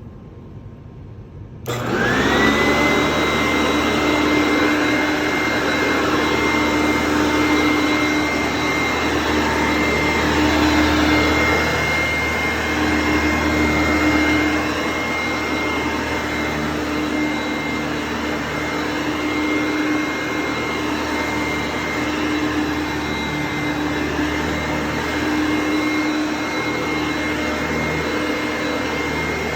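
1990 Hoover Innovation upright vacuum cleaner switched on a couple of seconds in: the motor's whine rises quickly to a steady high tone over the rush of air, and it runs on steadily, slightly quieter from about halfway through.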